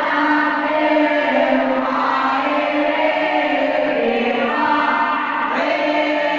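Group of boys and men chanting marhaba, Islamic devotional praise of the Prophet Muhammad, together in unison with long held notes and no instruments.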